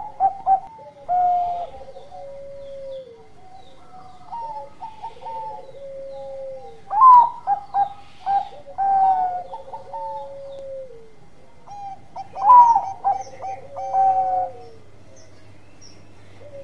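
Zebra dove (perkutut) of the Bangkok type singing its rhythmic cooing song. Phrases of short coos and longer purring notes repeat every five or six seconds, the loudest about seven and twelve seconds in.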